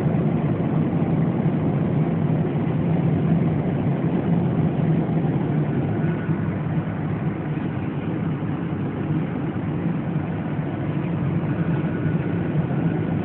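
Steady cabin drone of a Ryanair Boeing 737 airliner in flight, heard from inside the cabin: jet engine hum with a strong low tone under the even rush of airflow, unchanging throughout.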